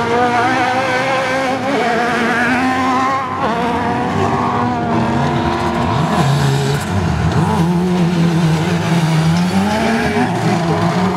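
Several autocross buggy engines revving hard together on a dirt track. Their pitches rise and fall as the drivers work through the gears and the throttle.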